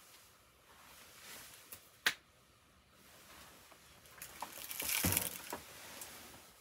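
Handling noises from fitting intercom parts into a motorcycle helmet: a sharp plastic click about two seconds in, then a stretch of rustling and scraping with small clicks near the end.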